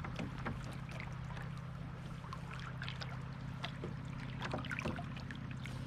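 River current rushing and trickling around a kayak moving fast downstream, with many small scattered splashes and knocks and a steady low hum underneath.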